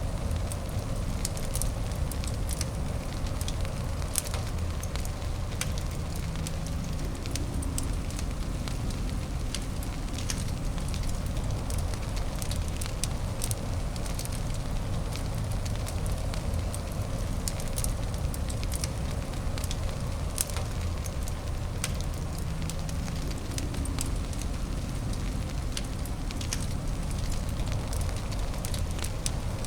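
Fireplace fire crackling: irregular sharp crackles and pops over a steady low rumbling noise.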